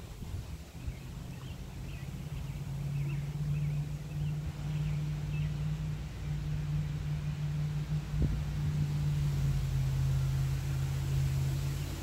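A low, steady engine drone that grows louder over the first few seconds and then holds.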